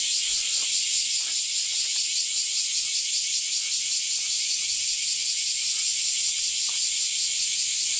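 Loud, steady chorus of cicadas: a dense, high rasping buzz with a fast pulsing texture.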